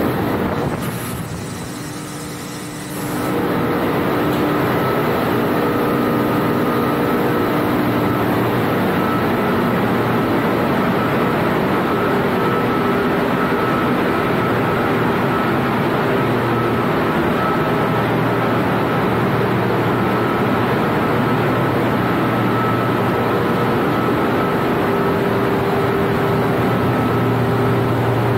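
Loud, steady machinery noise of a ship's engine room, with engines and pumps running and several steady hum tones over a broad rush. The noise drops for a couple of seconds about a second in, then returns to full level.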